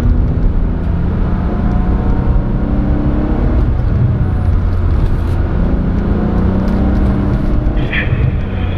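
Car engine heard from inside the cabin while driving, its pitch rising and falling twice as the car accelerates and eases off, over steady road noise.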